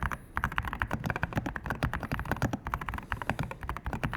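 Fast typing on the Lunacy x Akko Black Pearl mechanical keyboard, with solid walnut-wood case and Akko switches: a quick, dense run of keystroke clacks, many per second.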